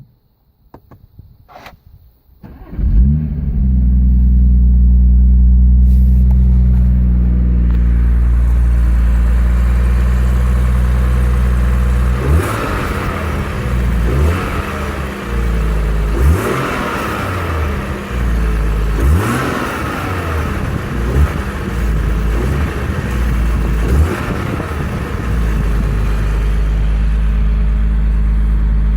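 BMW M140i's turbocharged straight-six starts about three seconds in with a brief flare and settles to a steady idle. From about halfway through it is blipped five or six times, each short rev falling back to idle.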